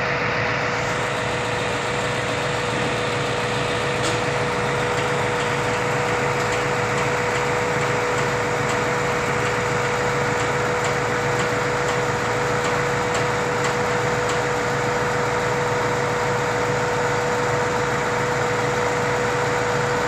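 Schwing S 43 SX truck-mounted concrete pump running steadily, its engine and hydraulic pump driving the boom as it unfolds, with a steady whine over the engine noise.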